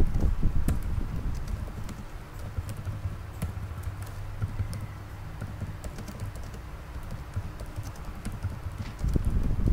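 Scattered light clicks over a steady low hum and rumble, with no speech.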